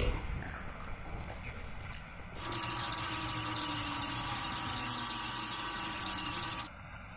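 VHS tape rewind effect: a steady static hiss with a faint steady whine in it. It starts suddenly about two and a half seconds in, after a quieter low rumble, and cuts off sharply near the end.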